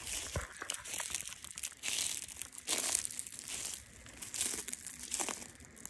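Footsteps crunching through dry leaf litter, an irregular crinkling with each step.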